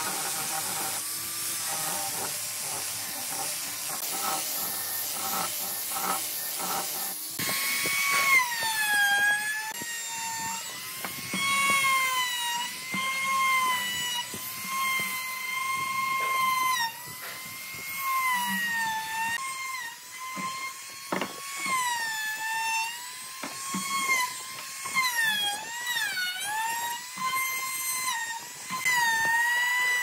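An angle grinder with a sanding drum sands a wooden leg with a steady gritty hiss. About seven seconds in, a compact trim router takes over as it cuts along the leg's edge: a high whine whose pitch dips and recovers again and again as the bit bites into the wood.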